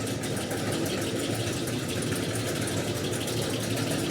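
A steady engine rumble, like a vehicle running, with no distinct knocks or impacts.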